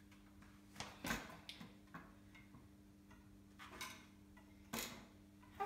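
A few scattered sharp clicks and knocks of a mountain bike's parts being handled at its front end, over a faint steady hum.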